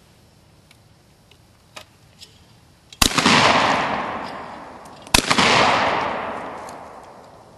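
Two shotgun shots about two seconds apart, each a sharp crack followed by a long echo that fades over about two seconds.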